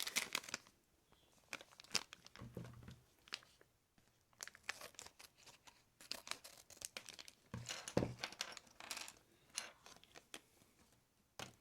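Plastic foil blind bag of a LEGO minifigure being torn open and crinkled by hand, with irregular crackles and rustles of the wrapper as the pieces are taken out.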